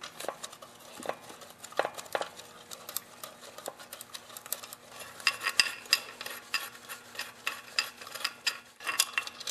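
Socket ratchet clicking as the 5/16 connecting rod cap bolts of a 5 hp Briggs & Stratton engine are backed out, with light metal clinks. The clicks are scattered at first, then come in a quick run about halfway through.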